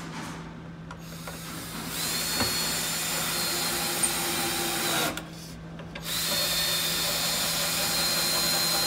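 Cordless drill driving wood screws into cedar boards: two runs of steady whirring, each several seconds long, with a short pause of about a second between them.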